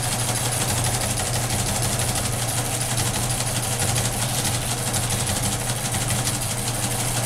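Teletype equipment running at 60 words a minute: a transmitter distributor reading five-hole punched paper tape and a tape printer printing, a rapid mechanical clatter over a steady motor hum.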